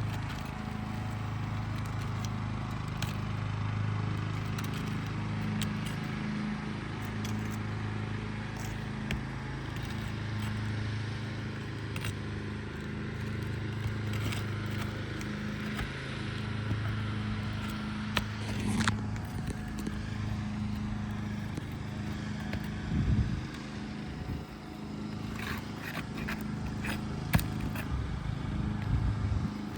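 Scattered scrapes and clicks of a thin trowel-type pry tool working under brittle asphalt shingles to break the adhesive seal, loudest in a cluster near the end. A steady low droning hum lies under it.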